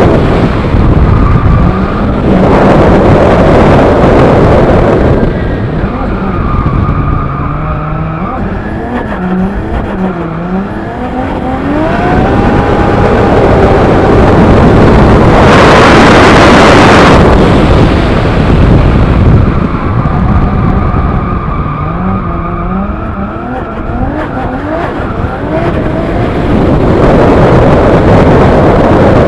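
Nissan Silvia S15 drift car with a swapped Toyota 2JZ straight-six and T-78 turbo, revving up and down again and again through a drift, with tyres skidding. The loudest stretch is about halfway through, with the engine held high.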